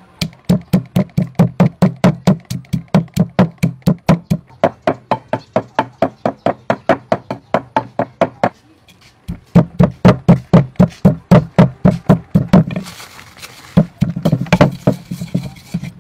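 Wooden pestle pounding red chilies and salt in a mortar: rhythmic thudding knocks, about three to four a second, with a brief break about eight seconds in and a looser, noisier stretch near the end.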